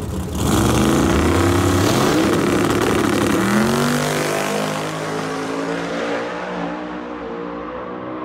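Drag racing car launching and accelerating hard down the strip, its engine pitch climbing, dropping once about three and a half seconds in at a gear change and climbing again. It then fades as the car moves away down the track.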